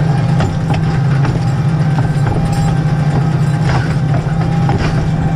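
Farm vehicle engine running steadily at a constant speed, with scattered light ticks and rattles over the drone.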